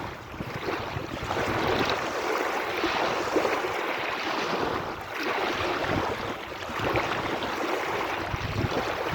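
Sea waves washing, the surf rising and easing every second or two, with wind rumbling on the microphone now and then.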